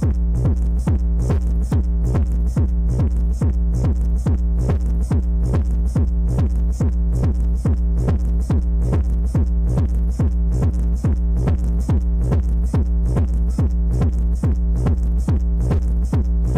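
Electronic DJ dance track with a fast, steady kick-drum beat, about two kicks a second, and heavy bass, played loud through a DJ sound system of wooden cabinets loaded with eight bass and eight mid-range speakers.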